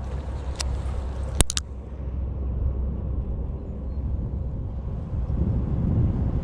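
Wind buffeting the microphone, a steady low rumble that grows somewhat stronger in the second half. A few sharp clicks come about half a second in and again about a second and a half in.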